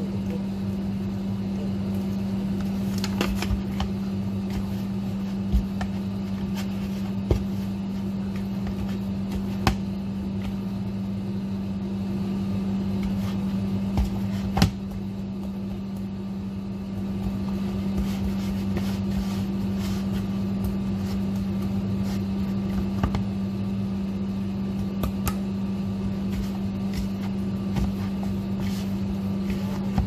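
A steady electric motor hum, as from a kitchen fan or appliance, with a few sharp taps and knocks at irregular intervals, the loudest about halfway through.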